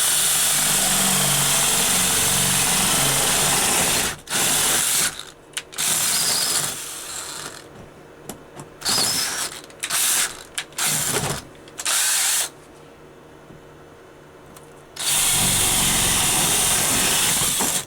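Power drill running in bursts while drilling holes in the wood backboard for toggle bolts: one run of about four seconds, then several short bursts and quick trigger pulses, then another long run near the end.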